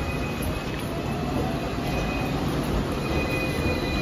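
A rail vehicle running, a steady rumble with thin high squealing tones from the wheels that come and go.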